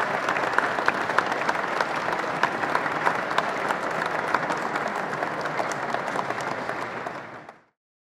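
A crowd applauding steadily, a dense patter of many hands clapping, fading out about seven and a half seconds in.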